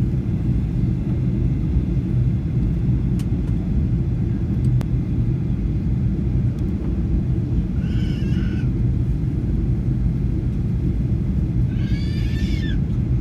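Steady low cabin drone of a Boeing 737-800 in flight, with a constant hum under it. Two brief high-pitched cries, voice-like, about 8 seconds and 12 seconds in.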